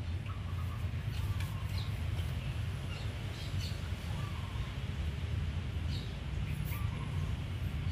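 Outdoor ambience: a steady low rumble with faint bird chirps now and then, and a few soft clicks.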